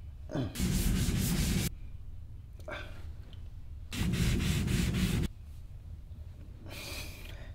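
A man breathing heavily: three long, loud, rushing breaths about three seconds apart, with softer breaths between them.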